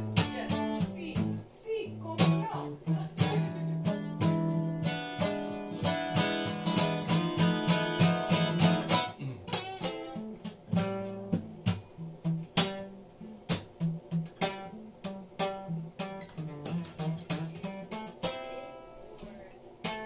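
Acoustic guitar played: plucked notes and strummed chords, busiest about a third of the way in, then sparser chords toward the end.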